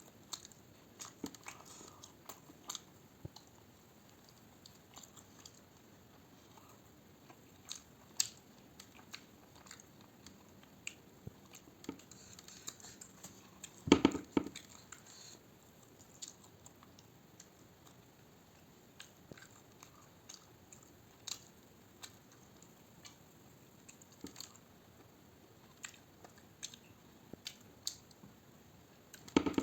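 A person chewing and eating close to the microphone, with scattered soft mouth clicks and smacks and a louder bite or burst of chewing about halfway through.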